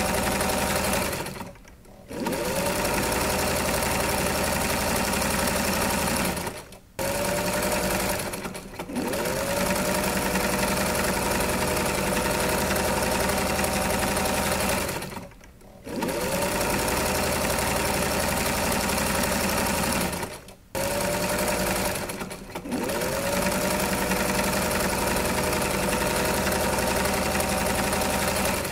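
Sewing machine running in long stretches, stopping briefly about six times; after each stop the motor's whine rises as it comes back up to speed.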